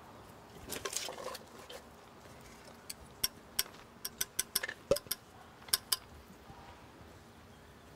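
PVC pipe fittings and a can of PVC primer being handled: a rustling scrape about a second in as the can is opened, then a quick run of sharp, light plastic clicks and taps.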